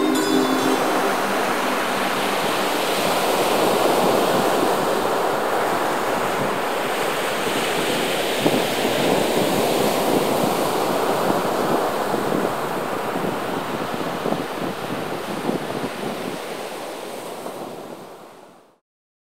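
Ocean waves breaking on a beach: a steady rush of surf that swells and ebbs, fading out near the end.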